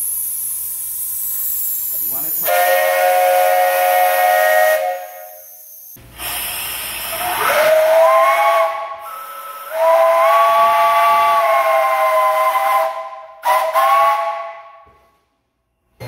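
3-inch three-chime steam whistles blown from a shop steam boiler. After a hiss of steam, a chord blast from a 3-inch three-chime Buckeye ends about five seconds in. From about six seconds a 3-inch three-chime Lunkenheimer sounds: its chord slides up to pitch as the valve opens, then comes a longer steady blast and two short toots.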